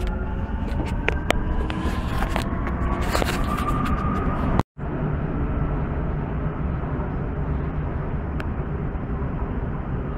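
Metro train heard from inside the car: its electric traction motors whine and rise steadily in pitch as the train accelerates, with scattered clicks and rattles from the car. After a brief cut about halfway through, the car runs on with a steady rumble.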